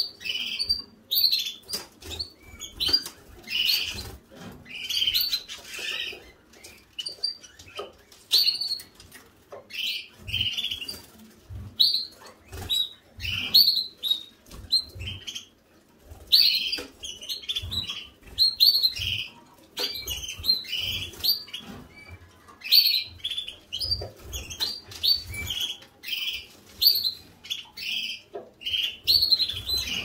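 A canary bathing in a covered plastic bird bath, fluttering its wings in the water in short, irregular spurts of splashing, with water drops spattering against the plastic hood.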